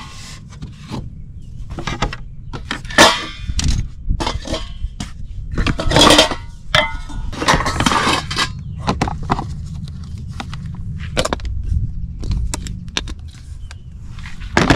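Things being handled and set down: a run of irregular knocks and clatters, some with a short ring, over a steady low rumble.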